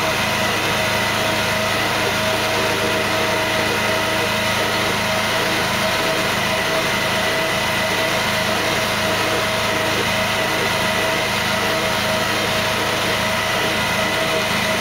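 Salt spreader's machinery running at a steady speed, driving the rubber chevron conveyor belt along the hopper floor: an even mechanical hum with several constant tones.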